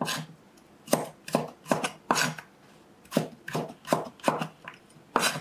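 A kitchen knife cutting raw potato into strips on a cutting board: a series of sharp chops at a steady pace, about two or three a second, with a short break midway.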